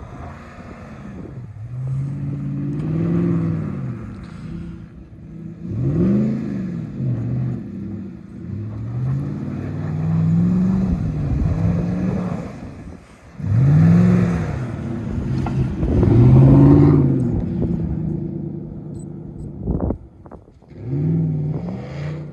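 Car engine revving up and down over and over as the car spins donuts in snow, its pitch rising and falling in swells a few seconds apart. A few sharp clicks come shortly before the end.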